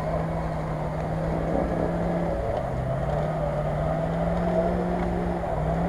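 Land Rover Discovery's engine working under load as the 4x4 crawls up a muddy slope. The revs sag about two and a half seconds in, pick up again, and sag briefly once more near the end.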